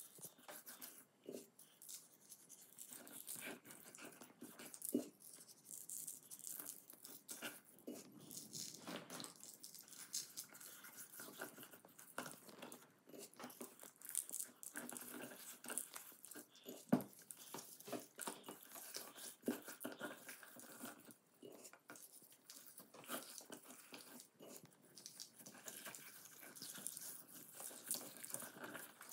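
Hands rubbing salt into the skin of a raw duck: faint, irregular rustling and gritty crunching, with a few sharper clicks.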